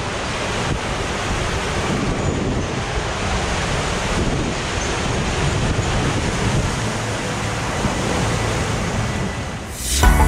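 Rushing water and a four-person inflatable raft sliding down a ProSlide TornadoWave water slide, a steady hiss with wind buffeting the microphone. Music starts near the end.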